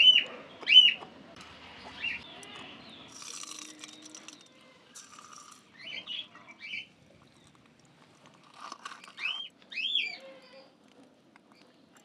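A myna calling: short arching calls, mostly in pairs, near the start, around the middle and again near the end, with faint scattered rustling in between.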